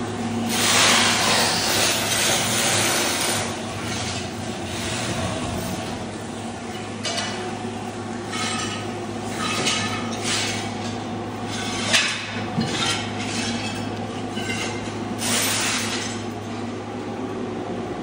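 Floor scraper machine running with a steady hum while its blade scrapes tile and thinset mortar off a concrete slab. There are repeated bursts of scraping and clinking tile shards, loudest about a second in, and a sharp crack about two-thirds of the way through.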